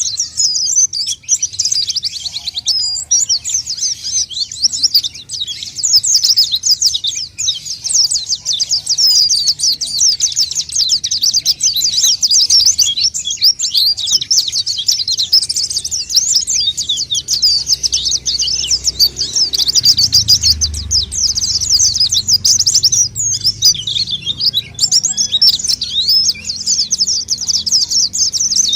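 White-eye (pleci) singing a rapid, unbroken twittering song of high chirps and trills, played as a lure call.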